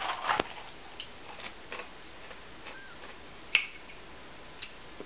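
Rustling and light clicking as a Jagarico potato-stick snack cup and its sticks are handled, with scattered small ticks and one sharp, louder click about three and a half seconds in.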